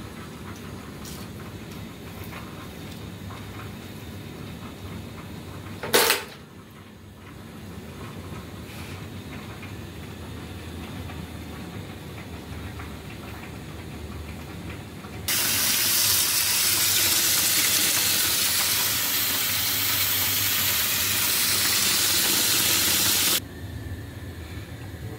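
A walnut shell cracking once, sharp and loud, about six seconds in, against faint handling sounds. Later a loud steady rush of running tap water lasts about eight seconds and stops suddenly.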